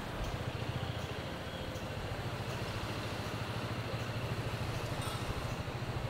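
A motor vehicle's engine idling steadily.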